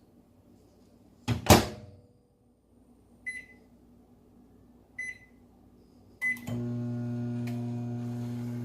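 Microwave oven being shut and started: a loud clunk of the door, three single keypad beeps, then the oven starts running with a steady hum about six and a half seconds in.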